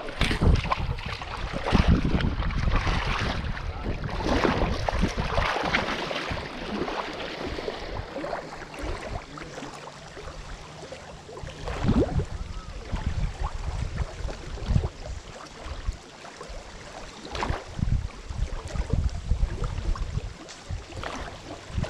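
Wind rumbling on the microphone with water splashing and lapping around legs wading in the shallows. It is busier and louder for the first several seconds, then settles into scattered gusts.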